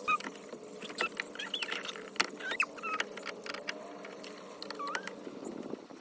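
Small birds chirping in quick short calls, over scattered clicks and light rattles of plastic interior trim pieces and clips being handled.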